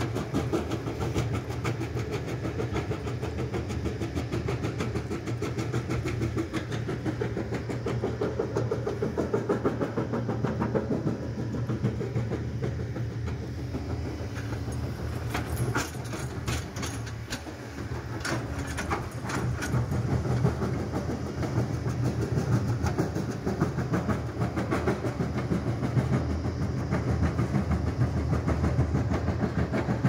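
Excavator crusher bucket grinding stone, a fast continuous rattling clatter of rock being crushed as gravel pours out, over the Kobelco excavator's diesel engine running under load. The clatter eases briefly about halfway through.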